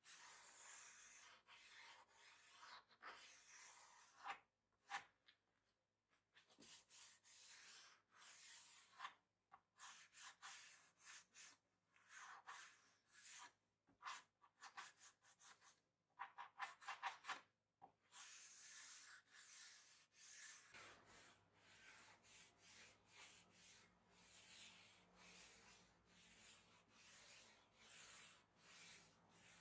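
Soft rubbing strokes of a cloth pad over a wooden tabletop as finish is wiped on, coming in short bursts with brief pauses, then a steadier run of strokes near the end.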